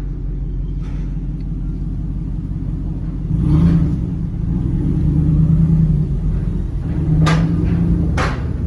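Pickup truck engine rumbling at low speed, picking up with a stronger drone about three seconds in. Two sharp knocks come near the end.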